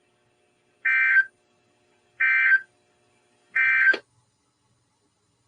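Emergency Alert System end-of-message signal: three short bursts of buzzing digital data tones, about a second apart, marking the end of the alert.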